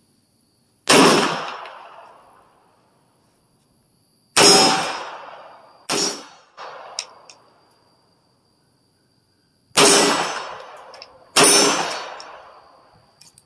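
Five single shots from a Foxtrot Mike FM9 9mm pistol-caliber carbine, fired slowly one at a time a few seconds apart, each a sharp crack followed by a ringing tail lasting about a second.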